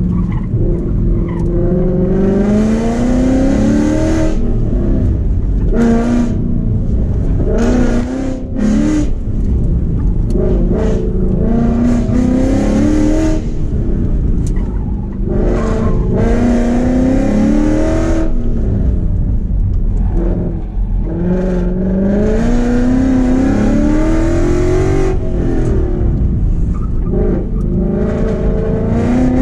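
A Ford Mustang GT's 5.0 V8 with long-tube headers, an X-pipe and Borla ATAK mufflers, heard from inside the cabin, pulling hard again and again. The engine note rises on each run up the revs and is broken off by short lifts of the throttle between them.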